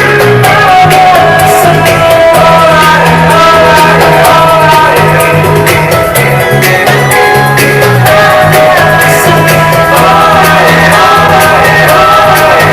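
A song with singing played loud through a boAt Stone 1000 portable Bluetooth speaker, streamed from a phone.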